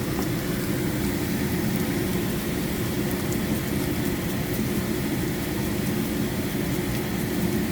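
Beans and carrots frying in a pan: a steady sizzle over a constant low rumble, with a few faint ticks.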